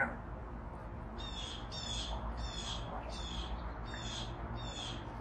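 A harsh animal call repeated about six times at a steady pace, starting about a second in, each call short and high with a falling pitch.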